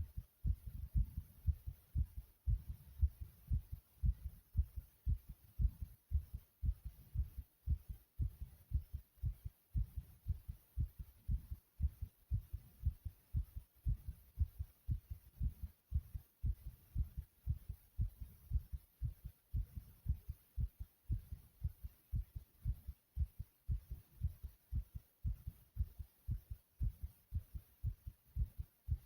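Human heartbeat pounding: low thumps in a quick, steady rhythm.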